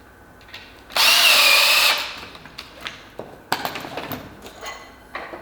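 Power screwdriver driving a screw through the frame into a wooden rung, its motor whining steadily for about a second, followed by light clicks and knocks.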